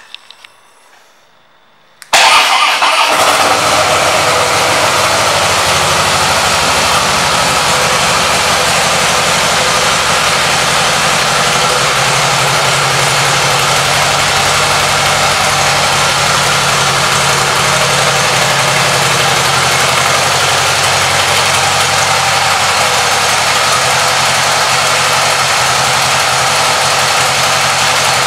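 2016 Harley-Davidson Fat Boy S's air-cooled Screamin' Eagle Twin Cam 110B V-twin starting about two seconds in, catching at once, then idling steadily.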